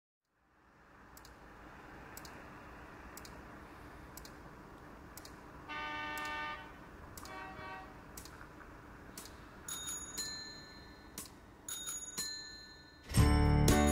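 Intro sound design: a soft swelling hiss with faint, evenly spaced ticks. A bright bell-like chime sounds about six seconds in, followed by a fainter echo of it and then scattered bell tones. Music with a strong low beat starts about a second before the end.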